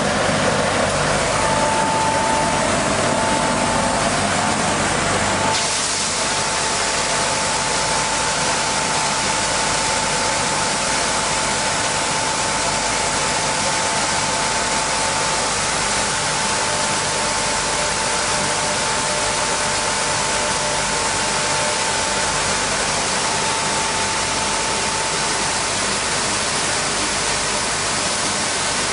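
CNC sanding machine running and sanding a poplar snowboard core: a steady loud noise with a constant whine. About five seconds in the low hum drops away and the sound turns brighter and hissier, then holds steady.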